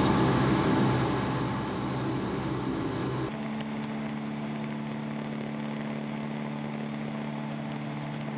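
Grumman Goose's Pratt & Whitney R-985 radial engines and propellers in cruising flight: a loud rushing drone in the cockpit, then, about three seconds in, a sudden change to a steadier, evenly pitched engine drone with wind.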